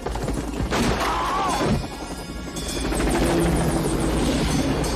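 Helicopter rotor beating steadily as a low chop, under a film score. A brief rising-and-falling wail comes about a second in, and the music swells from about halfway.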